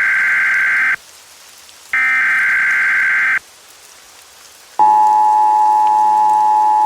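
Emergency Alert System tones: two screechy bursts of digital header data, about a second and a half each, then, about five seconds in, the steady two-note attention signal, loud over faint rain.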